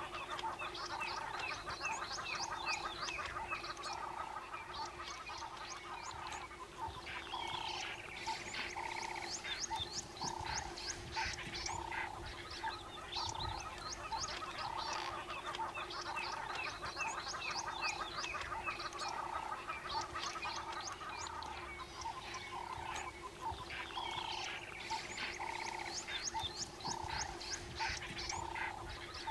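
Wild bush ambience of many small calling animals: a chorus of quick bird chirps, a lower call repeated about once a second, and a faint steady hum beneath them.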